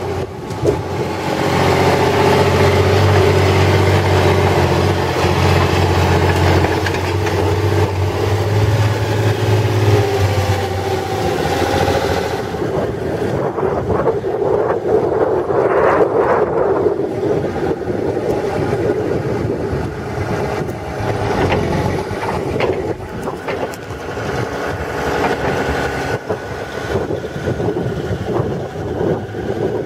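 Diesel engine of a JSW Nikko BH45 hydraulic excavator running steadily under load while the boom and bucket are moved. About twelve seconds in the sound changes, the high hiss falling away and a rougher, uneven running taking its place.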